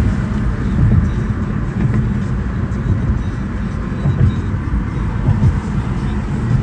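Road noise in a moving car on a highway: a steady low rumble.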